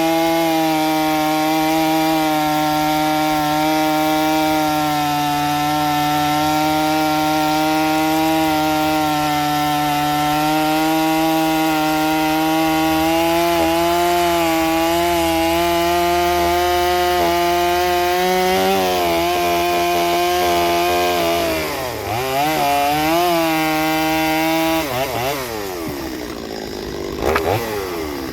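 Stihl 023 C two-stroke chainsaw running at full throttle, cutting wood, with a steady high engine note. In the last ten seconds its revs drop and pick up again several times, then snap back to full speed near the end.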